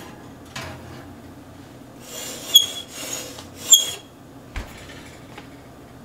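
Wire oven rack carrying a glass pie dish pushed into an electric oven: a scraping slide with two sharp ringing clinks, then a dull thump as the oven door shuts.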